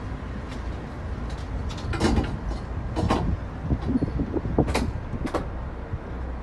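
Steady low vehicle rumble with a few sharp clacks and knocks over it, about two, three, four and three-quarters, and five and a half seconds in.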